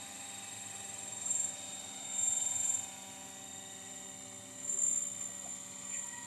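Battery-electric radio-controlled helicopter flying low nearby: a steady whine from its motor and rotors, swelling briefly louder a few times as it manoeuvres.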